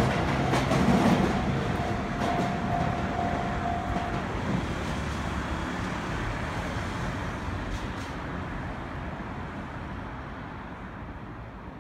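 Sotetsu 11000-series electric train running away past a level crossing, its rumble fading steadily. A steady whine carries through the first four seconds or so, with a few clicks near the start.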